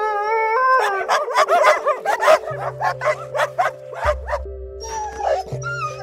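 Puppies yipping and barking in a quick run of short high calls, opening with a brief wavering howl, over background music.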